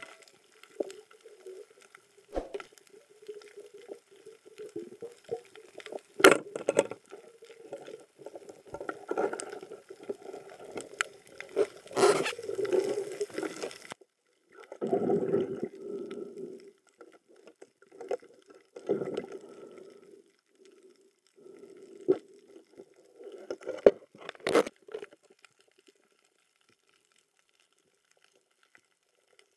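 Muffled underwater water noise heard through a camera housing, coming in uneven surges, with a few sharp clicks or knocks. It cuts out about four seconds before the end.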